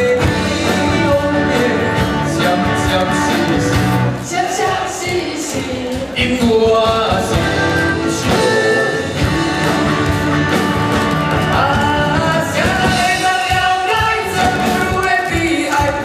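Live pop-rock band playing: a woman and a man singing into microphones over a drum kit, amplified through a PA.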